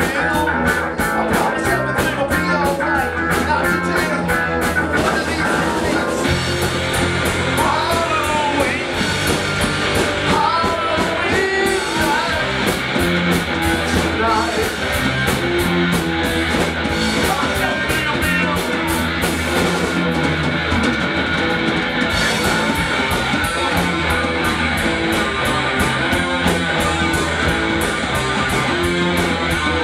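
A live rock band playing: electric guitars, bass guitar and drum kit, with a man singing into the microphone.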